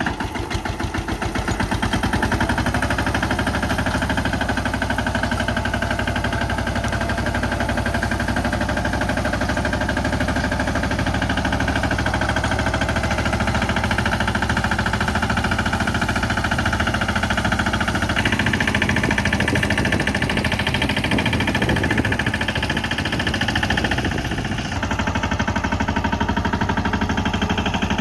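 Steeltrac 18 hp mini tractor engine running steadily with an even, rapid beat while the tractor pulls a rear-mounted tillage implement through the soil under load.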